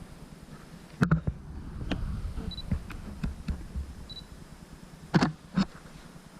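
Canon DSLR camera shutter clicking several times, with two short high autofocus-confirmation beeps in between.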